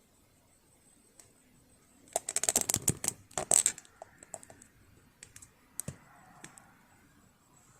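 A dense burst of rapid clicks and rattles lasting about two seconds, then a few scattered single clicks, from small hard objects being handled.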